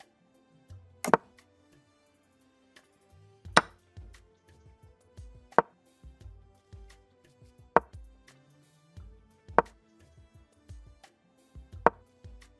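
Chess-move sound effect: a sharp wooden clack of a piece being set down, six in all, about one every two seconds as each move plays, over soft background music with sustained notes.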